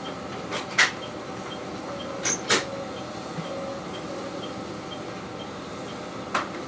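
Steady hum of a diesel railcar idling while standing at a station. Sharp clicks come about a second in, twice close together around two and a half seconds, and once near the end, over a faint regular ticking about twice a second.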